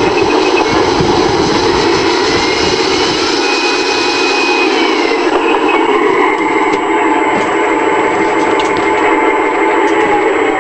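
Simulated V-2 V12 diesel tank engine sound played through the small speaker of an RC tank's sound unit, running steadily. Thin whines come and go over it, and the upper hiss eases off about halfway through.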